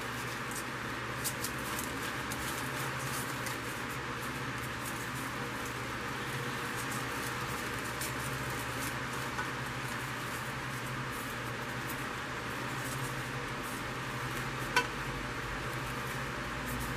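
Faint rustling and crackling of artificial flower stems and leaves being handled and pushed into a foam ball, over a steady background hiss and low hum. One sharper click near the end.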